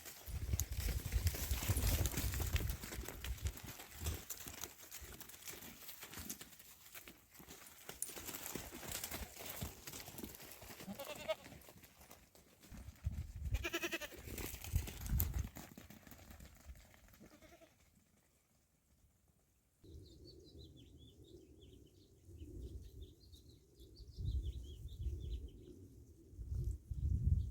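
Goats bleating a few times, with wind buffeting the microphone in gusts. Faint bird chirps come in over the last third.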